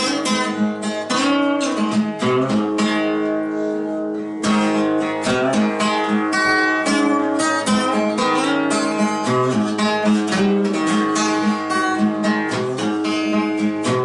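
Acoustic guitar strummed in quick strokes, its chords ringing, played a little harder from about four seconds in.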